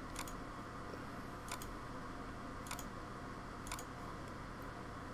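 Computer mouse clicking, about four clicks roughly a second apart, each a quick pair of ticks, over a faint steady room hum.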